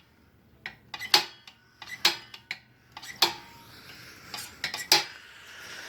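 Light metallic clicks and clinks at an irregular pace, about one or two a second, as the mini bike's newly fitted brake linkage is worked by hand.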